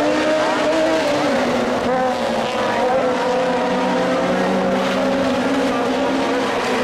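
Several Super 1600 rallycross cars racing together, their 1.6-litre four-cylinder engines revving hard, with several engine notes overlapping and rising and falling through the corners.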